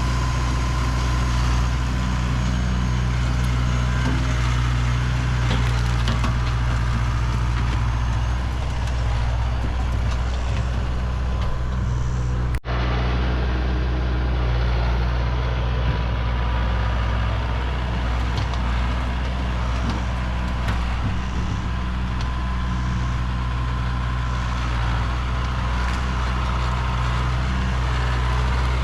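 Tractor engine running steadily at a constant speed, with a momentary dropout about halfway through.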